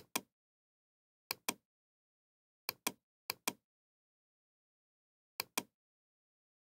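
Computer mouse clicking five times, each click a sharp press followed by its release about a fifth of a second later, with dead silence between the clicks.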